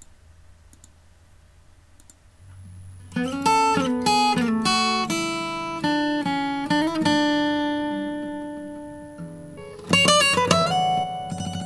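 Recorded plucked guitar phrase played back through a compressor set to fast attack and very fast release. It starts after about three seconds of faint hum, with notes ringing and dying away, and a new run of notes comes in near the end.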